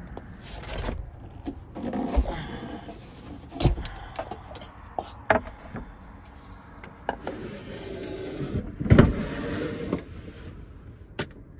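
Cooking gear being handled on a wooden counter: a fork, a bowl, a cutting board and a plastic sous vide container are knocked, set down and rubbed, giving irregular knocks and clatters. A louder rushing scrape comes about nine seconds in.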